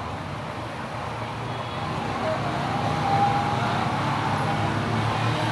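Steady road-traffic rumble, slightly louder about halfway through.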